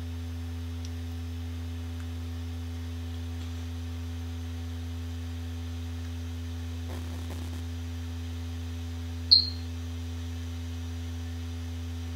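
Steady low electrical hum with no speech. About nine seconds in comes one short, sharp high-pitched chirp, the loudest sound.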